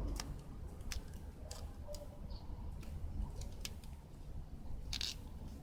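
Irregular light clicks and taps from small plastic door-handle parts being handled, with a sharper rustling click about five seconds in, over a low steady hum.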